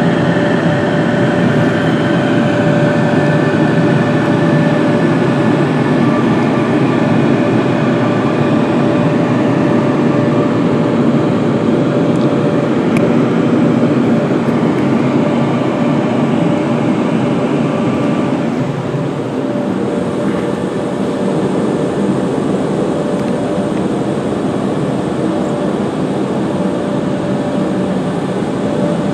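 Electric dryer blowers on a Karcher Opti Wash 8000 car-wash gantry running, heard from inside the car: a loud, steady rush of air with a constant hum through it. About 19 seconds in the sound drops a little and changes tone as the gantry moves along the car.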